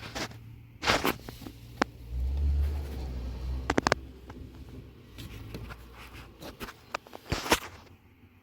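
Scattered knocks and clicks, with a low rumble from about two seconds in that fades by about five seconds.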